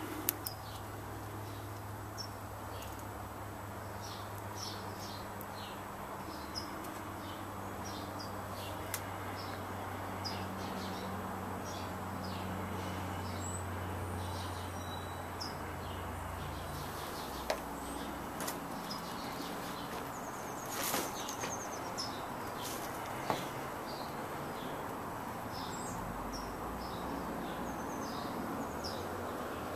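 Outdoor ambience: birds chirping in many short calls over a steady background rush and low hum, with a few brief knocks partway through.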